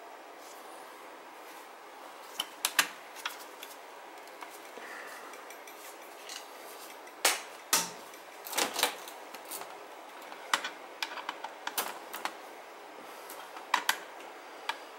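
Irregular small clicks and taps of hand wiring work on an electronic boiler control: a screwdriver, fingers and wire ends knocking against terminal screws and the plastic housing.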